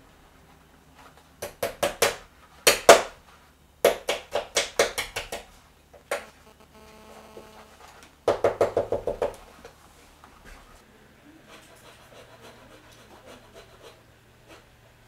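Waxed shoemaker's thread being drawn quickly through the hands, a dry rasping stroke repeated in bursts of five to eight strokes at about six a second.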